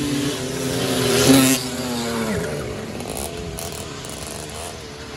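Small two-stroke motorized bicycle engines racing. One passes close and loud about a second in, then its pitch drops away as it goes by, and another engine note keeps running underneath.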